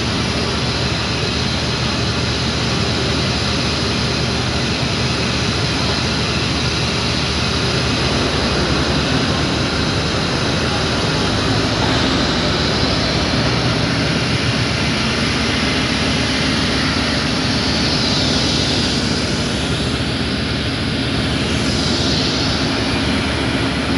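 Caterpillar diesel engine of a ZCU-20 diesel locomotive running steadily at close range while the locomotive stands coupled to coaches, a high whine riding over its rumble.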